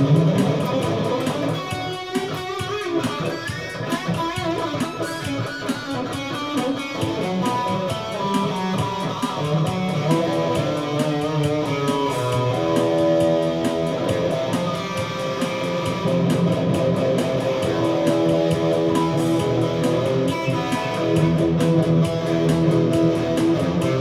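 Electric guitar playing an instrumental break, notes and chords changing throughout, over a steady BeatBuddy drum-machine beat.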